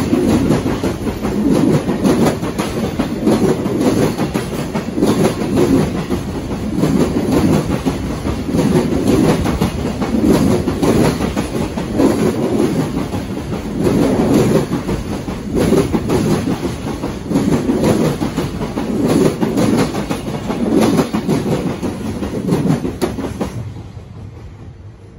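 Container wagons of a freight train rolling past, steel wheels clattering over rail joints in a steady repeating rhythm. The rumble dies away near the end as the last wagon clears.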